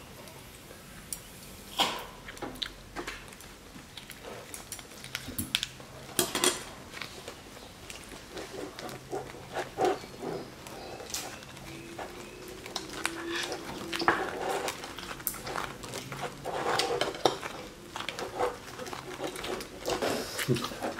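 Irregular light clinks and taps of chopsticks and fingers against ceramic plates and bowls as food is picked up and rolled at the table.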